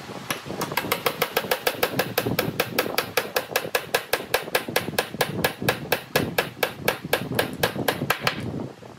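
Claw hammer tapping rapidly and lightly on a pine bed-frame joint, about five or six even strikes a second, stopping shortly before the end.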